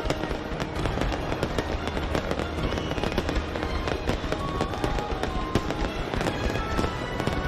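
New Year's fireworks going off in a dense, rapid crackle of pops and bangs.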